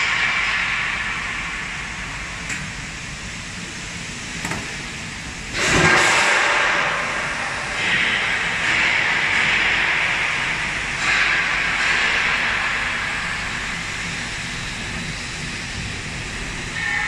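A steady hiss that swells and fades, with a sudden louder rush about five and a half seconds in.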